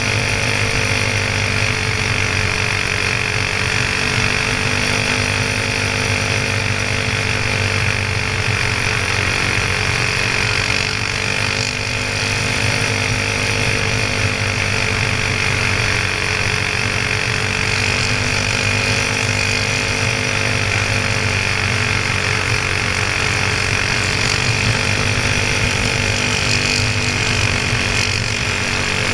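Go-kart's Honda-clone single-cylinder four-stroke engine running hard near 6,000 rpm, heard close up from on board. Its pitch dips slightly and recovers through the corners, with a steady rush of wind and track noise underneath.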